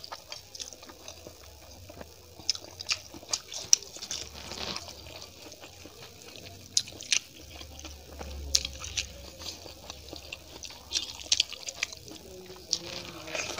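Eating by hand: fingers mixing and squeezing rice with dal and omelette on a steel plate, with soft wet squelches and scattered sharp clicks, along with chewing sounds.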